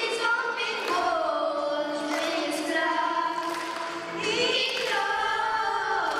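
A group of voices singing a song together, in long held notes.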